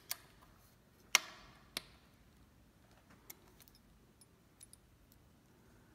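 Steel hex keys clinking against each other and against the stem's top-cap bolt while the bolt is checked for looseness. A few sharp metallic clicks: the loudest comes about a second in and rings briefly, a second click follows shortly after, and fainter ticks come later.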